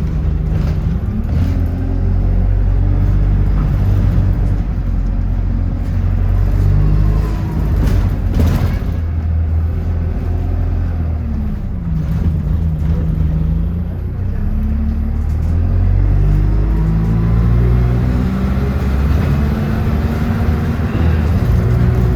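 Bus engine heard from on board, running under load, its pitch rising and falling as it accelerates and changes gear, dipping low about halfway through and climbing again.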